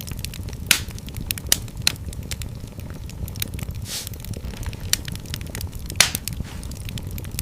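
Fire in a fireplace crackling: a steady low rumble of flames under frequent small pops. Louder snaps come about a second in, near two seconds and at six seconds, with a short hiss about four seconds in.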